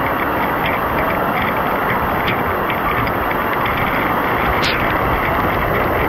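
Waterfall pouring into its pool: a steady, loud rush of falling water.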